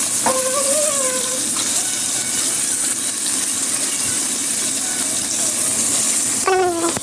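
Chicken pieces deep-frying in hot oil: a loud, steady sizzle.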